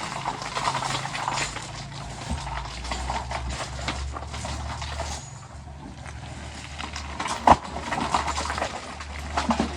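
Heavy construction machinery's diesel engine running steadily, with scattered metallic knocks and clanks and one sharp loud knock about seven and a half seconds in.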